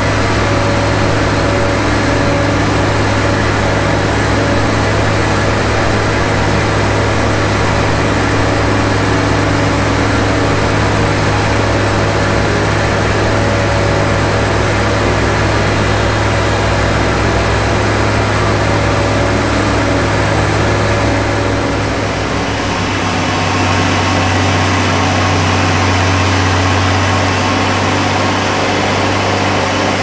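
The engine and spinning blade of an Enterprise circular sawmill run steadily, not cutting, while the log is set on the carriage. The sound shifts about two-thirds of the way through.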